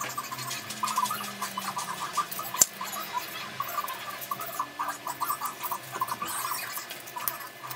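Craft knife cutting foam board: quick, squeaky scraping strokes with scattered ticks, and one sharp click about two and a half seconds in. The sound seems sped up along with the picture.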